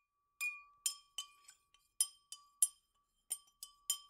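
A paintbrush knocking against the inside of a glass water pitcher as it is rinsed: about ten sharp, irregular clinks, with the glass ringing on a thin steady note between them.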